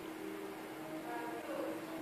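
Faint, indistinct voices over a steady low hum.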